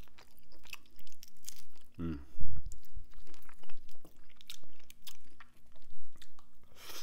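A person chewing a rotisserie chicken wing with his mouth close to the microphone: wet chewing with many small crunches of the bitten-off bone end. About two seconds in there is a short low voiced 'mm'.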